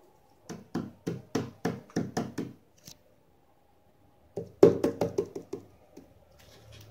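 Two quick runs of short knocks: about eight at roughly three a second, a pause, then a faster, louder run of about seven.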